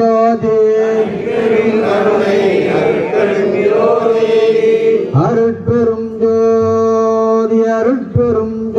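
Voices chanting a devotional song in unison, holding long steady notes, with short breaks between phrases.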